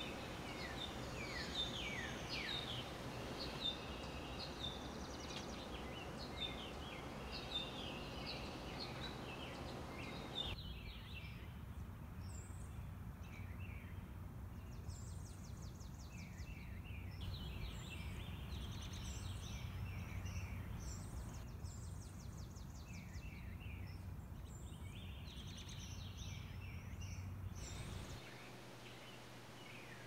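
Several songbirds singing and calling outdoors over a steady low background rumble: first a run of short down-slurred notes, then, after an abrupt change about ten seconds in, a different mix of chirps and buzzy trills, which changes again near the end.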